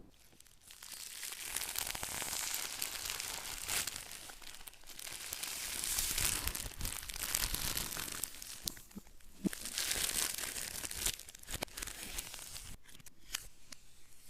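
Packaging being torn open and crinkled, in several long stretches of tearing and rustling, followed by a few sharp clicks and taps near the end.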